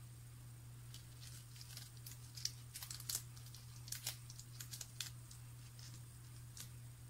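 Blue masking tape being peeled off the edges of a painting on paper, crackling and tearing in short bursts as strips come away, with the peeled tape crinkling as it is balled up in the fingers. The crackles come thickest in the middle of the stretch.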